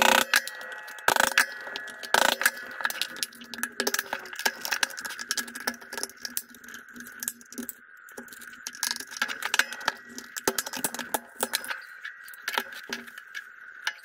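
Screwdriver prying apart the glued plastic housing of a Tesla Mobile Connector: many irregular clicks, cracks and scrapes as the glued seam gives way, with a few louder cracks in the first couple of seconds.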